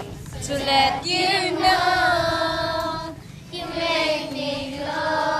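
A group of young girls singing together in held notes, pausing briefly about three seconds in before the next phrase.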